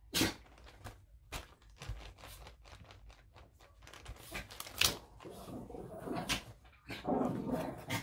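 Irregular light knocks and clicks as stamps and paper are handled at a craft table, with stretches of rustling about five seconds in and again near the end.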